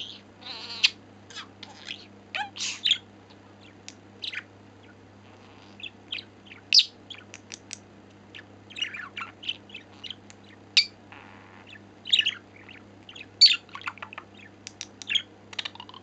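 Budgerigar chattering: a run of short high chirps, clicks and warbled notes with brief pauses, over a steady low hum.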